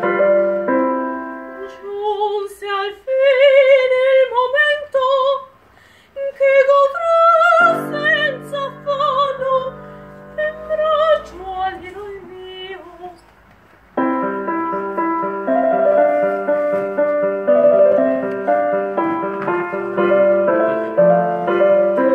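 A soprano sings in operatic style with a strong vibrato over piano accompaniment. A little past halfway the voice stops and the piano carries on alone.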